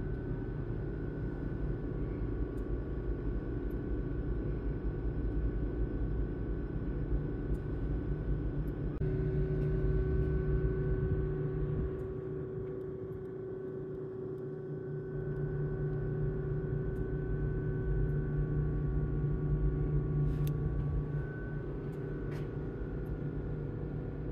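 Steady low mechanical hum and rumble with a few faint held tones; the tones change about a third of the way in and again later.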